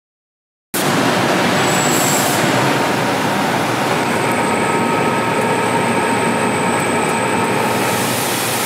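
Steady, loud rushing mechanical noise that starts abruptly under a second in, with a faint high whistle over it.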